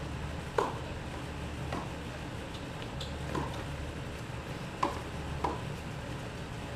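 Tennis ball being hit in a rally: five sharp pops of racket strikes and court bounces about a second apart, the first the loudest, over a steady low rumble.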